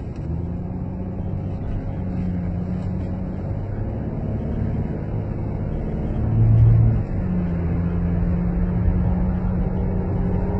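Chrysler 300C running with a steady low drone and whine, the unexplained whining noise the car has. There is a brief louder swell about six and a half seconds in.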